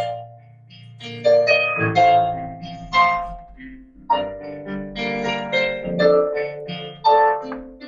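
Solo piano playing a late-intermediate piece in romantic style: ringing chords and melody notes in slow phrases, quieter for about a second near the start.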